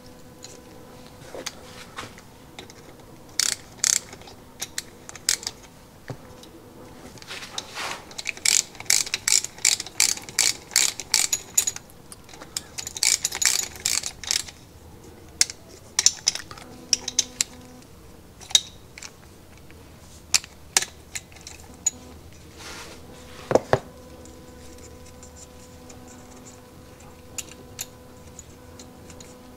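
Hand ratchet wrench clicking in two quick runs of several seconds each as small screws are run in, among scattered small clicks and taps of tools and metal parts, with one sharper knock about two-thirds of the way through.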